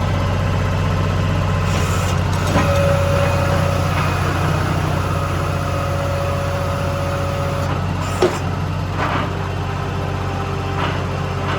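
New Holland skid steer engine running steadily, with a couple of sharp knocks, the louder one about eight seconds in.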